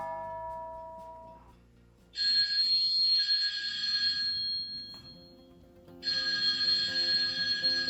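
Doorbell chime ringtones being previewed: a short melodic chime of a few falling notes, then two bursts of an electronic bell-like ring, each about two and a half seconds long.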